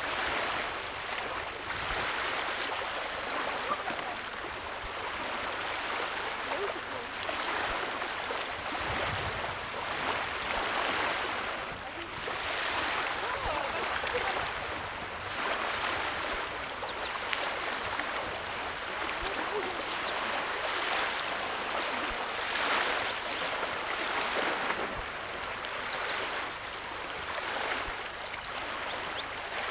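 Rushing noise of wind and lake water, swelling and easing every second or two.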